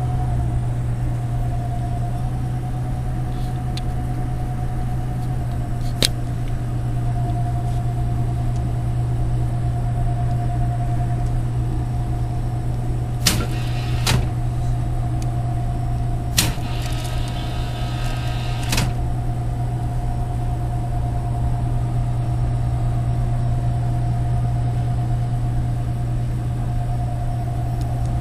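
Steady low electrical hum of a refrigerated food vending machine's cooling unit, with a thin steady whine above it. A few sharp clicks come through the middle, with a short rattle between two of them.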